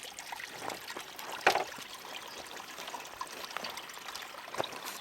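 Water trickling and splashing steadily into a garden pond from a small pump-fed waterfall, with one brief, sharper sound about a second and a half in.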